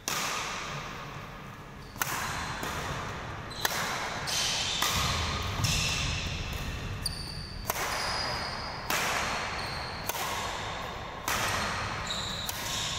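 A badminton rally in singles play: about ten sharp strikes of rackets on the shuttlecock, roughly one every second or so, each echoing in the large hall, with short squeaks of shoes on the court floor between them.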